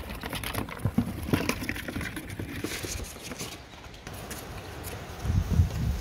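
Scattered short scrapes, rustles and clicks from hands working at corrugated roof sheeting and a starling nest cavity, with low wind rumble on the microphone near the end.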